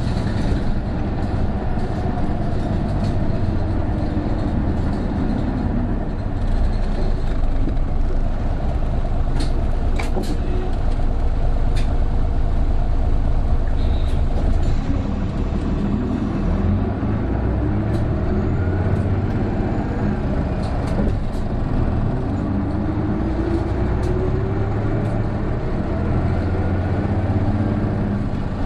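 Cabin sound of an Isuzu Erga city bus (PJ-KV234L1) on the move, its straight-six turbo diesel pulling, with a whining tone that rises and falls with engine speed: the odd drivetrain noise this bus is known for once the turbo comes in. A few rattling clicks about ten seconds in.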